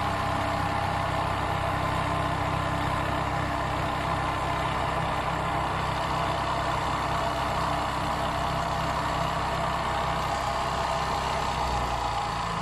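CNC oscillating-blade foam contour cutter running while its vibrating knife cuts flexible PU foam: a steady mechanical hum with several fixed tones.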